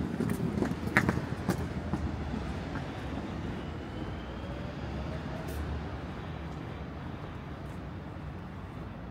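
Road traffic on a city street: a vehicle passes and its rumble slowly fades, with a few sharp clicks in the first two seconds.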